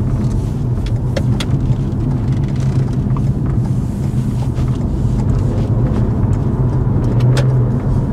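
A hybrid car driving at a steady pace, heard from inside the cabin: a steady low rumble of road and tyre noise, with a few faint clicks.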